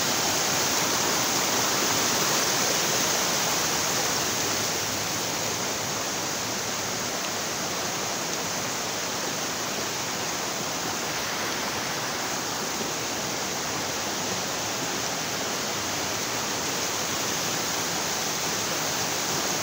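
Fast mountain stream rushing over rocks, a steady rush of water that eases slightly about four seconds in.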